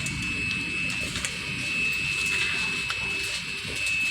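Steady airliner cabin noise: a constant rushing hum with a thin high whine running through it, and a few faint clicks.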